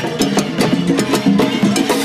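Salsa music with live percussion: timbales, cowbell and a jam block struck in a quick, dense pattern over a recorded salsa song.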